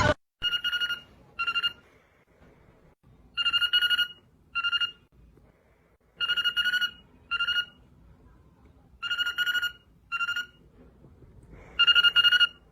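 A telephone ring in a repeating double pattern, a longer ring then a short one, coming round about every three seconds.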